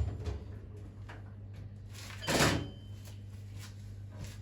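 A hammer tapping a centre punch to mark a con rod cap: one sharp metal knock about two seconds in, with a brief ring, followed by a couple of light clicks. A steady low hum runs underneath.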